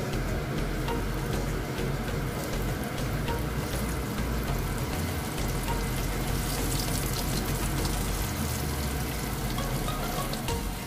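Floured fish fillet frying in hot oil in a non-stick pan: a steady sizzle with fine crackling and popping, which grows brighter and busier past the middle.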